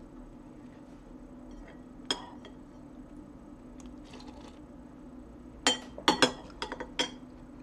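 Spoon clinking against a soup bowl while eating: a single clink about two seconds in, then a quick run of five or six clinks near the end, over a faint steady hum.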